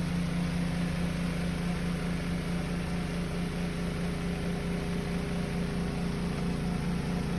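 Costway portable washer's spin dryer running at full speed, a steady, not really loud motor hum with a strong low tone, spinning the water out of a load of wet clothes.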